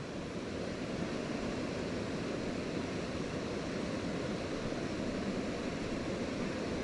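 Steady rush of a small river's current flowing past the bank, an even noise with no single events.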